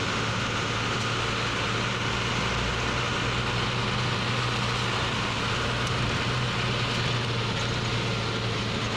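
Truck engine running steadily with road noise, heard from inside the cab while driving; a constant low hum with no change in pitch.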